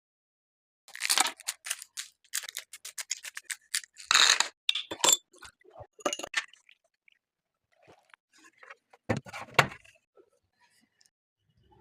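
Irregular crisp crunching and scraping clicks in quick clusters, then a pause of about two seconds and a final louder cluster.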